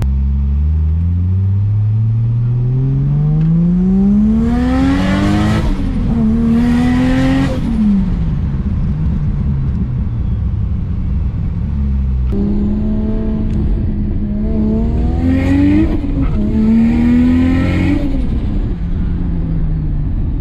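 Turbocharged 4.0-litre Barra straight-six of an FPV F6 Typhoon accelerating hard twice, heard from inside the cabin. Each time the revs climb, dip at a quick upshift, climb again and fall away as the throttle is lifted, with a rushing hiss near the top of each pull.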